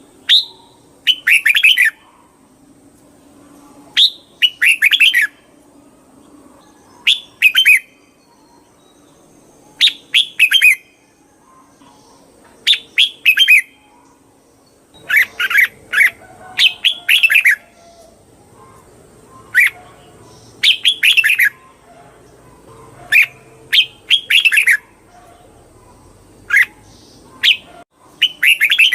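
Red-whiskered bulbul singing: short phrases of quick, clear whistled notes, one phrase every two or three seconds.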